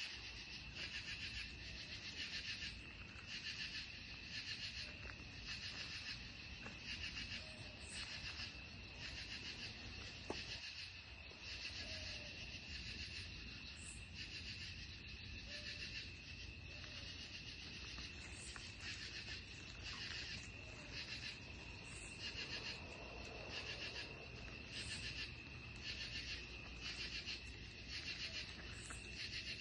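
Night insect chorus: a steady high trill under a second, pulsing call that repeats a little under twice a second. There is one sharp click about ten seconds in.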